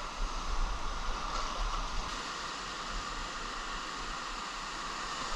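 Shallow ocean surf washing up over wet sand as a steady hiss of broken waves, with a low wind rumble on the microphone.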